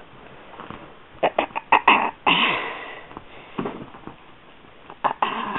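Bedding rustling, with a quick run of soft scuffs and thumps and then a louder rustling burst a little after two seconds, as kittens pounce on feet moving under the covers. Single scuffs follow about a second and a half and three seconds later.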